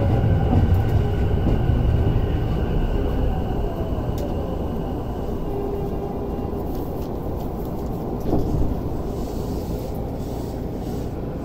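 Electric commuter train heard from inside the car as it brakes into a station: the running noise and a motor whine falling in pitch fade out over about five seconds as the train comes to a stop, leaving a quieter steady hum.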